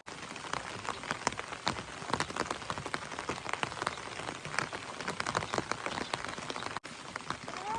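Rain falling steadily, with many large drops hitting a hard surface in quick, irregular ticks over a constant hiss of rain.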